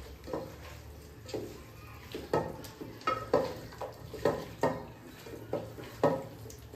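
Raw chicken being mixed by hand with a spice marinade in a stainless steel bowl: repeated knocks, irregular at roughly two a second, as the hand and the meat hit the bowl, each ringing briefly.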